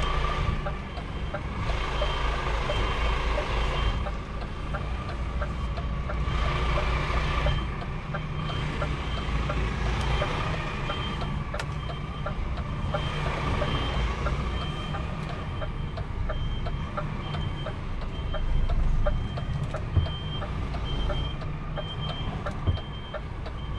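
Truck's reversing alarm sounding evenly spaced high beeps over the steady low running of the truck's engine as it backs up.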